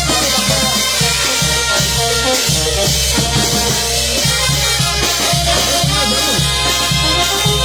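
Peruvian banda show ensemble playing an instrumental passage between sung verses: wind instruments over drums and a steady, even beat.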